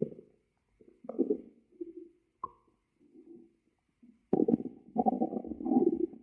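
A hungry stomach growling and gurgling in irregular bursts, with a short sharp pop about two and a half seconds in and the loudest, longest rumble over the last two seconds.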